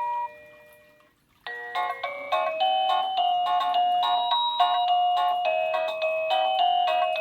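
Electronic melody chime from a Bestrix plug-in wireless doorbell receiver. One tune's last note fades out, and after a short silence a new tune starts about a second and a half in, a brisk run of beeping notes.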